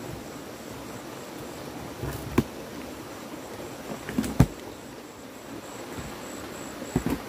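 A few sharp knocks over a steady background hiss: two single knocks about two seconds apart, then a quick cluster of knocks near the end. A faint high pulsing tone runs underneath.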